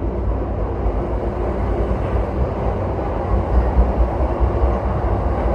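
Yamanote Line electric commuter train running along the track, a steady low rumble of wheels and running gear heard from the driver's cab.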